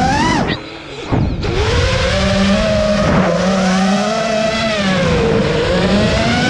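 FPV quadcopter's brushless motors whining, the pitch rising and falling with the throttle. About half a second in the whine briefly cuts back almost to nothing, then spools straight back up.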